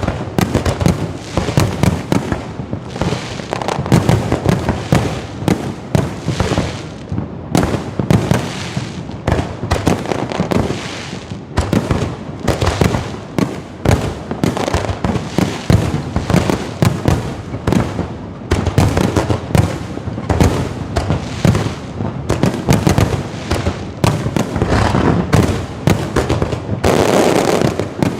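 Low-altitude fireworks display going off in a continuous rapid barrage of bangs and crackles, with a denser run of crackling near the end.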